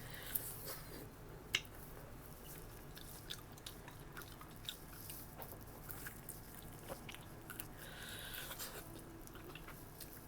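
A person chewing food close to the microphone: quiet, scattered mouth clicks, with two sharper clicks in the first couple of seconds.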